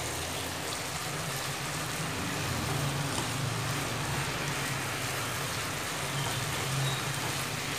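Frog pieces sizzling in a pan of reducing turmeric-lemongrass sauce, a steady rain-like hiss, as they are turned with chopsticks. A steady low hum runs underneath.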